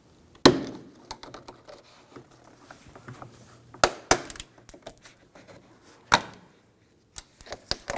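Plastic door trim piece being pried off with a trim tool: a sharp snap about half a second in as a retaining clip lets go, then scattered clicks and taps of plastic as the piece works loose.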